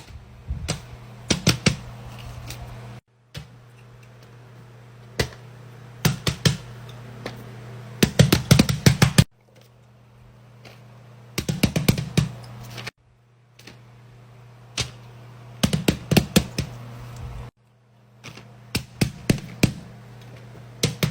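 Fidget toys being handled, clicking and clacking in irregular clusters of sharp clicks over a steady low hum.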